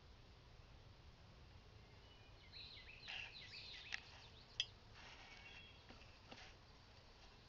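Faint outdoor ambience with small birds chirping: a quick run of short calls about three seconds in, and a couple of sharp clicks soon after.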